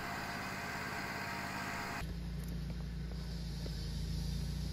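Honda portable generator running with a steady low hum inside its enclosure. The hum becomes the loudest sound about halfway in. Before that there is a steady hiss.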